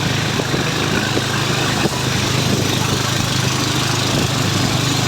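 A small engine running steadily at an even speed, a constant low hum under a noisy rush.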